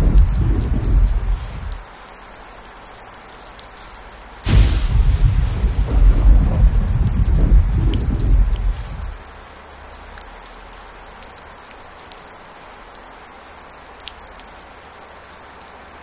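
Heavy rain falling steadily, with thunder rumbling in the first couple of seconds. About four and a half seconds in, a sudden thunderclap rumbles on for about four seconds and then drops away, leaving the rain alone.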